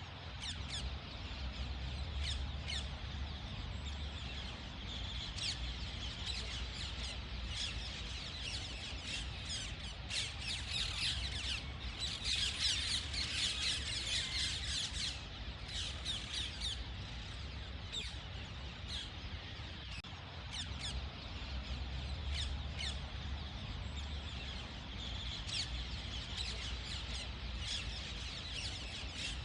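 Ringneck parrot calling: a steady stream of short, high chirps and squawks that grows densest and loudest around the middle, over a steady low hum.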